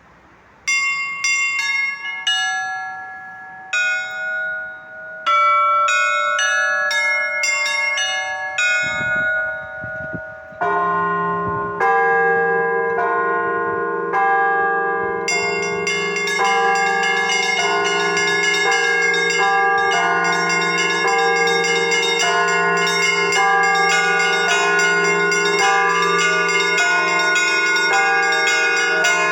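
Russian Orthodox church bells ringing. Small bells strike a pattern on their own at first, a large low bell joins about ten seconds in, and from about fifteen seconds all the bells ring together in a dense, continuous peal.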